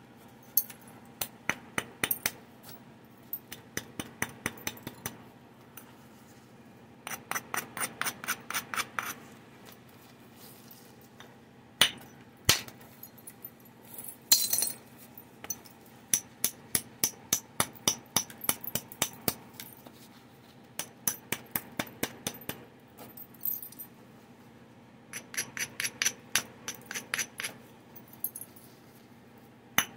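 Antler billet scraped and tapped along the edge of a stone Clovis point preform, giving runs of rapid sharp clicks about ten a second as the edge is prepared, with two louder knocks near the middle and a short gritty scrape of the antler on an abrading slab.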